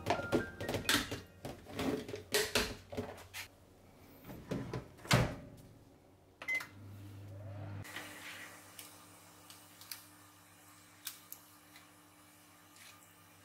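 Snap-lock plastic lid clicked shut onto a glass food container, a string of sharp clicks, then a louder clunk. A microwave oven gives one short keypad beep and then runs with a steady low hum.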